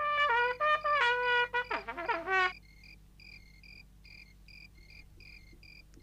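A trumpet plays a short run of notes, ending in a couple of downward slides, and stops about two and a half seconds in. After it, faint crickets chirp at an even pace, a few times a second.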